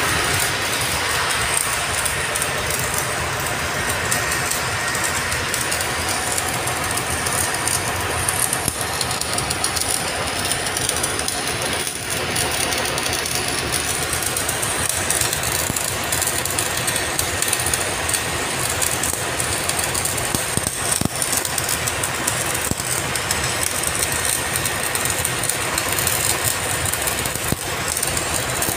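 Electric arc welding on a 10-inch steel pipe joint: the arc gives a steady loud crackle, broken by a couple of short dips.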